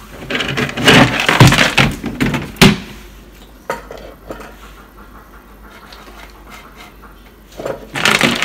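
Dry dog kibble being scooped and poured onto a dial kitchen scale to be weighed, rattling in a long burst that ends in a sharp knock, with a few light clicks, then another burst of rattling near the end.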